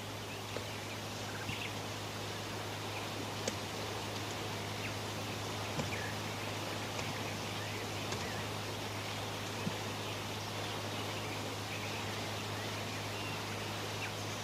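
Room tone: a steady hiss with a constant low electrical hum, broken by a few faint clicks.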